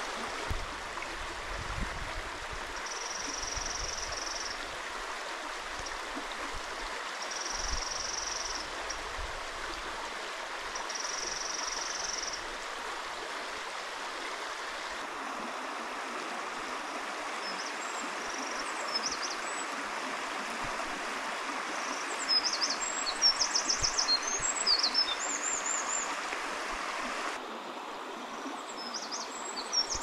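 Mountain stream rushing steadily over rocks. A bird gives three short, even, high trills in the first half. In the last third, a rapid, high, tumbling Eurasian wren song rises over the water.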